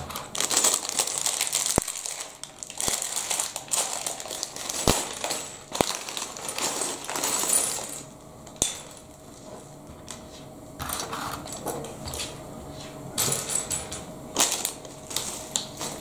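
Loose plastic Lego pieces clattering and clicking against each other and the wooden table as they are handled and sorted, with rustling of the plastic parts bag. The clicks come as scattered sharp ticks, thinning out in the middle before picking up again near the end.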